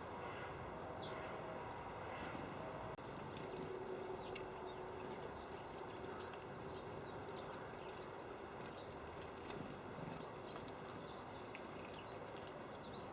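Small birds giving short, high chirps and calls, scattered irregularly, over a steady outdoor background hiss. There is a brief dropout about three seconds in.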